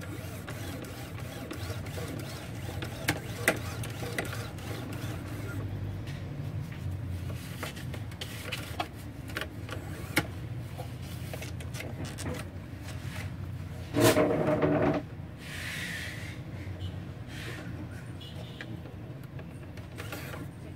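Scattered clicks and knocks of hands handling an opened Epson LX-300+ dot matrix printer's print head carriage and rail while it is wiped clean, over a low steady hum. About two-thirds of the way through, a loud tone with several pitches lasts about a second.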